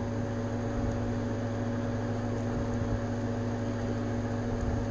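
Steady low mechanical hum of a running machine, with a few held tones over a faint hiss.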